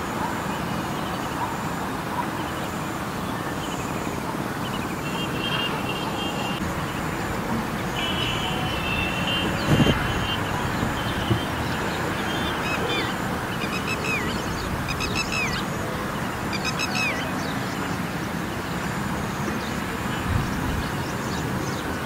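Steady road traffic noise with bird calls over it: a few short high whistles, then a string of calls each dropping in pitch, and a single low thump about halfway through.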